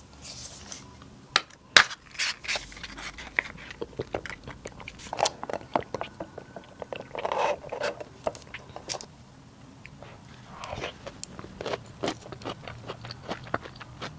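Close-miked eating: a person biting, crunching and chewing food, with many sharp uneven clicks, the loudest a couple of seconds in.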